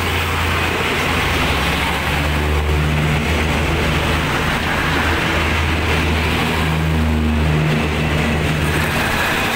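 A large engine running steadily: a low rumble with a hiss over it, and a hum whose pitch shifts slightly now and then.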